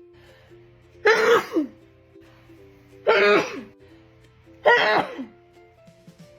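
A woman sneezing three times, about two seconds apart, each a short, loud voiced sneeze. Steady held notes of background music run underneath.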